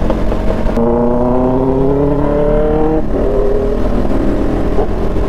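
Motorcycle engine running at road speed, its pitch rising steadily for about two seconds from about a second in, then dropping back and holding lower, over a steady low rumble of wind and road noise.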